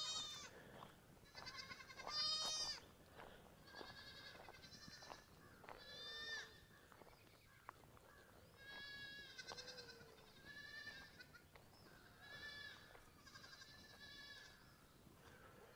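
Goat kids bleating, a dozen or so faint, high, quavering calls spaced about a second apart: kids calling while separated from their mothers.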